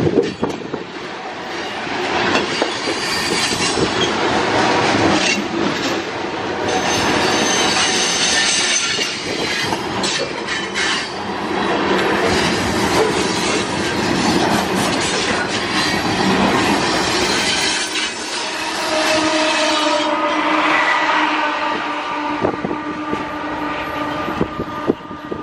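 A BNSF unit grain train's covered hopper cars rolling past close by, the steel wheels clacking and knocking over the rail joints. Several steady ringing tones join in over the last few seconds as the end of the train goes by.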